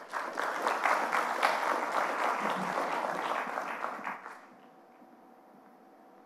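Audience applauding, which dies away about four seconds in, leaving quiet room tone with a faint steady hum.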